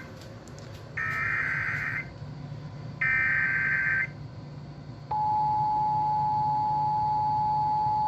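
Emergency Alert System SAME header: two raspy one-second bursts of digital data tones about a second apart, the encoded header of a new alert. About five seconds in, a steady single-pitch attention tone begins and holds, the signal that a new warning message follows.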